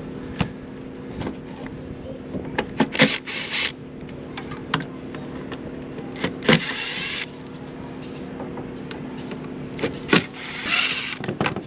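Cordless drill-driver backing out the screws on the fan-motor bracket of a rooftop RV air conditioner: three short whirring runs of under a second each, with sharp clicks of the bit and metal parts between them. A steady low hum runs underneath.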